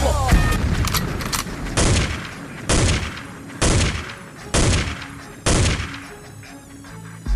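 Break in the hip-hop backing track: the beat and bass drop out and five loud gunshot sound effects land about once a second, each ringing out, over a faint held synth note. The full beat comes back in at the end.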